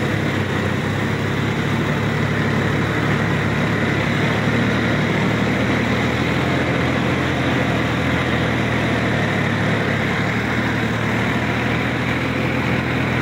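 Sonalika DI-50 RX tractor's diesel engine running steadily while driving, heard close up from the driver's seat.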